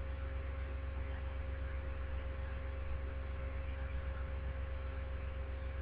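Steady low electrical hum with a faint steady higher tone over it, unchanging throughout.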